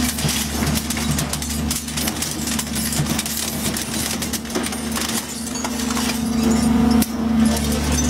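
Taurus 1100-ton hydraulic shear baler cutting a load of steel rebar: steady hum of the hydraulic power unit, with many sharp metallic cracks and clicks as the blade bends and shears the bars. The hum grows stronger again about six seconds in.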